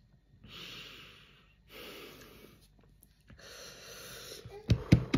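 A man breathing hard through his mouth, three long breaths of about a second each, to cope with the burn of a super-hot chili chip in his throat. A quick run of sharp knocks follows near the end.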